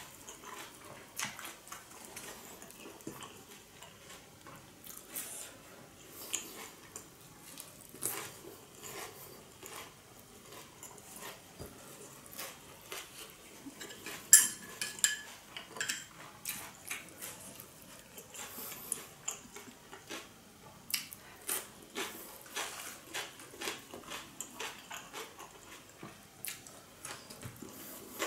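Close-up eating sounds: chewing fried pork spring rolls wrapped in lettuce and herbs, many small crunches and mouth clicks, with leaves rustling as the rolls are wrapped. One sharp clink about halfway through is the loudest sound.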